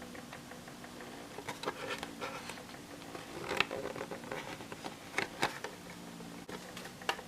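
Faint handling noises: a few small clicks and light rustles from hands at work on packaging and a diecast model, over a low steady hum.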